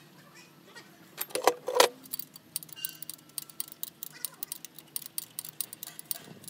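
A couple of loud metal clanks from a tool against the engine, then a ratchet wrench clicking in quick runs as bolts around the diesel engine's water pump are turned.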